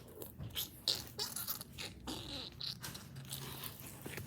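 Slime being handled and mixed, with scattered short squelches and scrapes.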